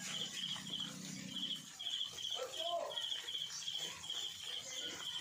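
High, rhythmic chirping, repeated in short pulsed groups about two to three times a second, typical of insects. A brief animal call comes about two and a half seconds in.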